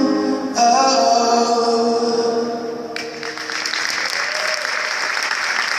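The final held notes of a sung song fade out, and about three seconds in the audience breaks into steady applause.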